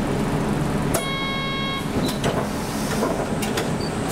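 A bus runs steadily, heard from inside the cabin. There is a short electronic beep about a second in, and a few scattered clicks and rattles.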